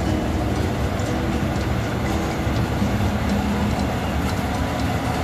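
Combine harvester's diesel engine running steadily as the machine pulls away, a deep even hum with light ticking over it.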